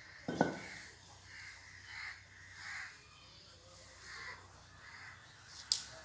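Crows cawing repeatedly in short hoarse calls. A single thump about half a second in, and a sharp click near the end.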